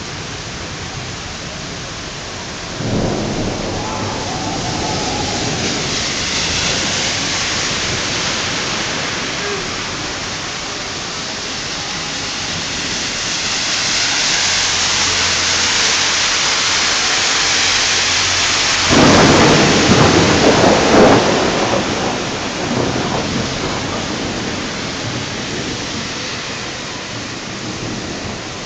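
Heavy rain pouring steadily during a thunderstorm, with thunder rumbling about three seconds in. A louder, ragged thunderclap comes about nineteen seconds in and rolls on for a couple of seconds.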